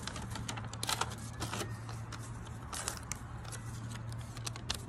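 A sheet of paper being torn and folded by hand: a run of short crinkles and rips, the loudest about a second in and again near the end.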